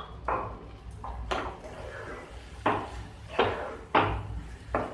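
A black flat spatula scraping and knocking against a non-stick kadai as sugar is stirred into thick wheat-flour halwa. There are about half a dozen sharp strokes a second or so apart.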